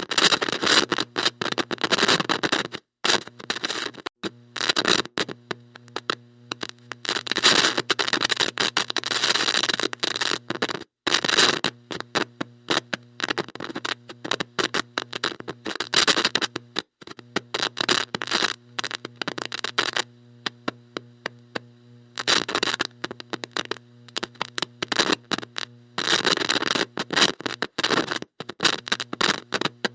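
Heavy static from a bad electronic connection: harsh crackling bursts that cut in and out irregularly over a steady electrical hum.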